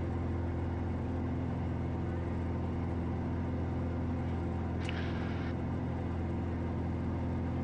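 Steady drone of a Piper Malibu's piston engine and propeller in cruise, heard in the cockpit. A brief radio squelch click and hiss comes about five seconds in.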